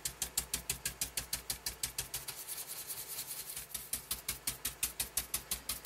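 Foam ink duster dabbed rapidly on card to blend in Distress ink: a fast, even patter of soft taps, about eight a second.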